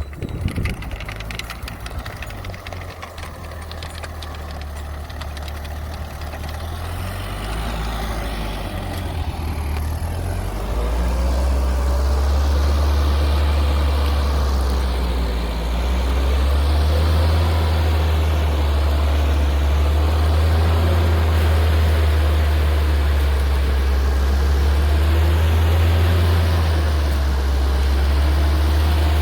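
Engine of a homemade rotary tiller running, growing louder over the first ten seconds or so and then running steadily.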